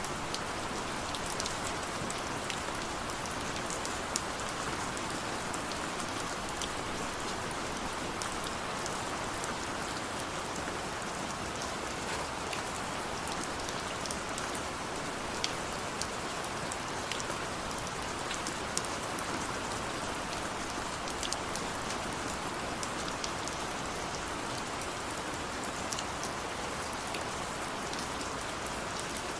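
Steady rain falling, an even hiss with scattered sharp individual drop taps.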